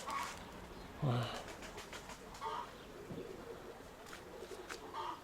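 Domestic pigeons at the loft: short calls repeating every couple of seconds, and a couple of sharp clicks about four seconds in.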